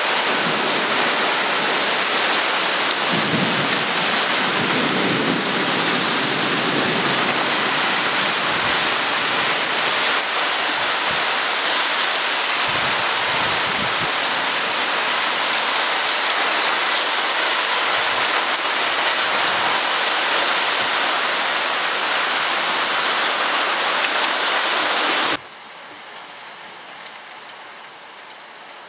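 Heavy rain pouring steadily through a thunderstorm, with low rumbles of thunder about three to seven seconds in and again around thirteen seconds. About 25 seconds in, the sound cuts abruptly to much quieter rain heard from behind a window pane.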